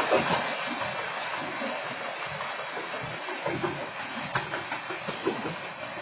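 Freight train of hopper cars rolling past, a steady rumble and hiss of wheels on rail with occasional clacks as wheels cross rail joints, loudest at the start.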